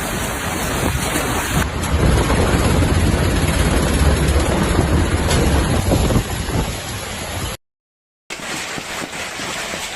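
Heavy storm rain beating down, a dense steady rush of noise. It cuts to a slightly different-sounding stretch under two seconds in and drops to dead silence briefly about three-quarters of the way through before the noise resumes.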